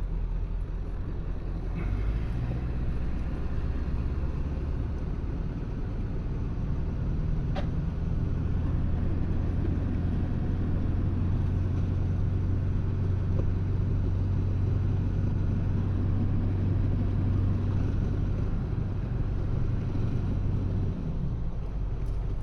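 Pickup truck running while being driven, a steady low engine and road rumble that builds a little in the first seconds and eases off near the end.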